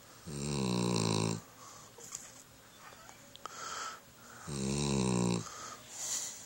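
Loud snoring: two long, low snores about four seconds apart, each lasting about a second, with softer breaths in between.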